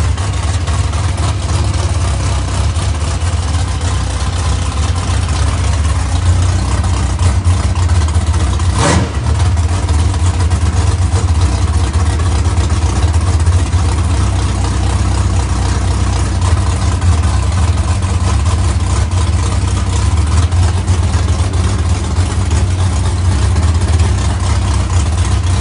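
Drag race car engine idling steadily, with a short sharp sound about nine seconds in.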